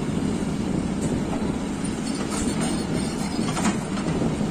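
Yuchai YC230 crawler excavator's diesel engine running steadily as it digs, with a few short knocks about two and a half and three and a half seconds in.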